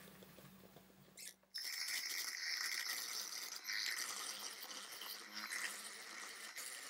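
KitchenAid electric hand mixer starting about a second and a half in and running steadily, its beaters mixing almond-flour batter in a bowl.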